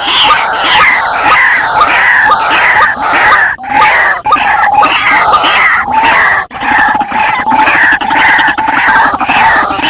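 White-breasted waterhens calling noisily: a fast, unbroken run of harsh, repeated calls, about three a second, with brief breaks twice.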